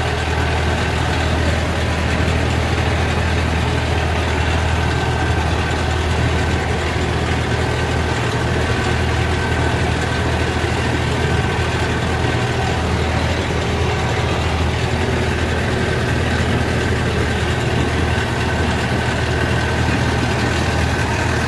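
The outrigger fishing boat's Mitsubishi 4DR5 four-cylinder diesel engine running steadily under way, a continuous loud drone.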